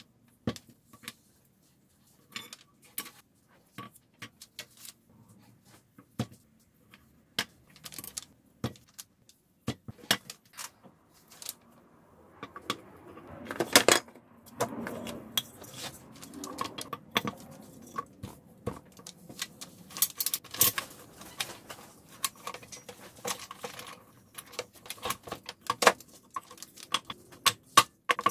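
Hardwood strips clacking together and metal bar clamps clinking and rattling while a cutting-board glue-up is clamped. Sparse sharp clicks at first, then busier handling with louder knocks from about halfway through.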